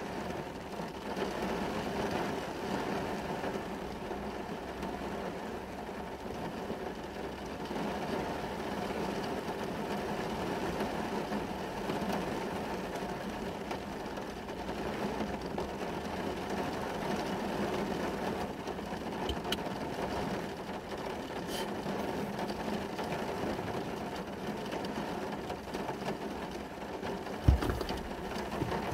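Rain heard from inside a car, over a steady mechanical hum. A single sharp thump comes near the end.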